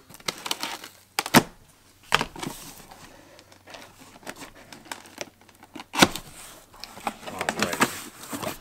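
Cardboard box being opened by hand: tape tab tearing, flaps rustling and scraping, with scattered clicks and two sharp snaps, one about a second in and a louder one about six seconds in.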